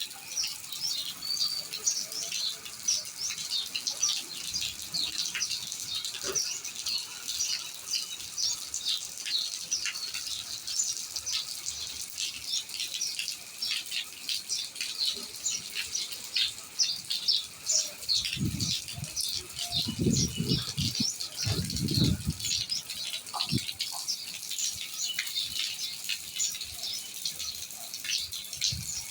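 Many small birds chirping at once in a continuous high-pitched chatter, with a few low bumps about two-thirds of the way through.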